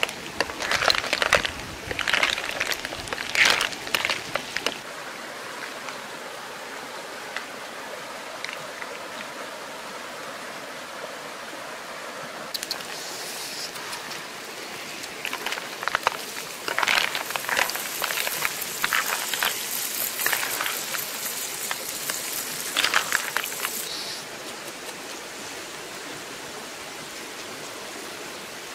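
Snail shells clattering in a pan as they are stirred with a wooden spatula, for the first few seconds. Then a steady sizzle of the snails cooking over a wood fire, with a louder high hiss and a run of clicks and crackles between about 12 and 24 seconds in.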